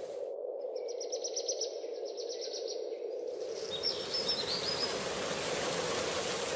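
Rainforest ambience: steady rushing water with birds chirping. A fast run of repeated high chirps fills the first half, while the water sound briefly thins out. A few more chirps come near the middle once the water is full again.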